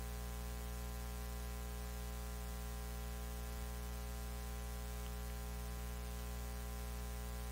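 Steady electrical mains hum with a buzzy ladder of overtones, unchanging throughout, with no other sound over it.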